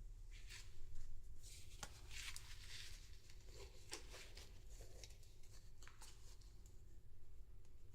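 Hands handling a doll and its packaging: soft rustling with scattered light clicks and taps, busiest a couple of seconds in, over a low steady hum.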